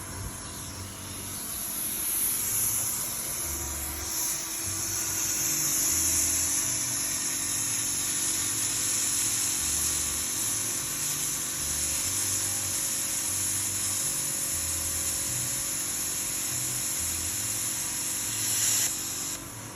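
Plasma cutter arc hissing steadily as it cuts through a steel H-beam, then cutting off suddenly near the end.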